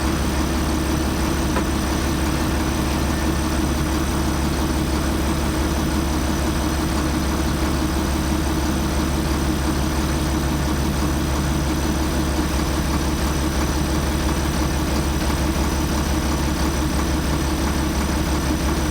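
International 1066 tractor's diesel engine running at a steady speed with an even low hum, on the road to the field with the field cultivator.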